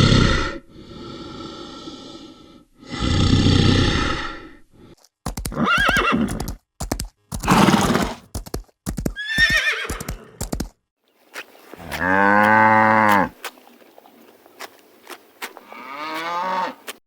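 A horse calling in a string of separate sounds: two loud breathy blasts, then shorter pitched whinnies, one long arching call about two-thirds of the way in.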